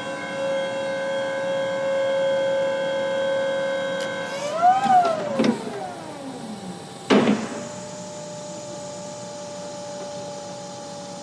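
Electric motor whine of a Raymond ESD-DR25TT stand-up reach truck: a steady pitched whine that swoops up and down in pitch about four to six seconds in. A sharp clunk follows about seven seconds in, then a quieter steady whine.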